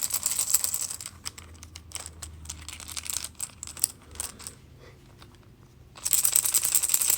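Giant wooden flower beads on a fidget loop clacking and sliding against each other: a run of quick, sharp clicks, quieter for a moment, then a dense burst of clacking near the end.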